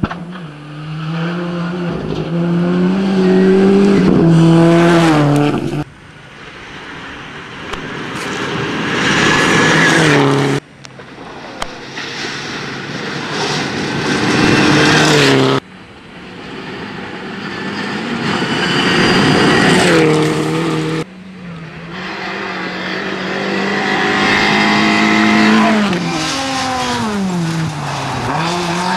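Rally cars at full throttle on a loose gravel stage, engines revving hard and climbing in pitch through the gears, with tyre and gravel noise under them. The sound is in five short passes, each cut off suddenly, and near the end one car's engine note drops as it lifts off, then rises again as it accelerates away.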